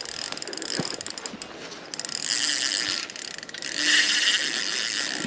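Fishing reel's drag ratcheting as a hooked carp pulls line off the spool: scattered clicks at first, then two runs of fast clicking, the second longer and louder.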